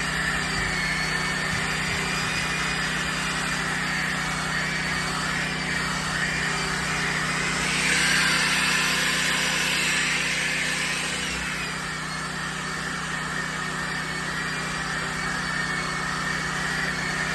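Electric power sander running steadily against bare log wood, with a motor hum and whine. The rasping of the sandpaper grows louder about eight seconds in and eases off after about eleven.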